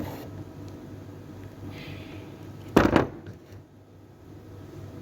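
One short, loud clunk of metal engine parts being handled about three seconds in, as tappets are pulled from a Scania truck engine, over a steady low hum.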